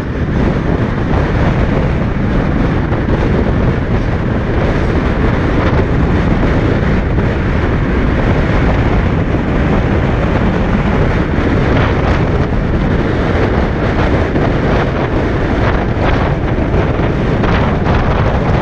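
Loud, steady wind buffeting the microphone of a camera mounted outside a moving vehicle, with road noise underneath.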